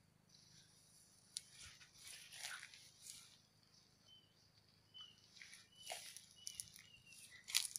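Quiet orchard ambience: scattered faint rustles and clicks, and in the second half a series of short high chirps from a small bird. A sharp click near the end is the loudest sound.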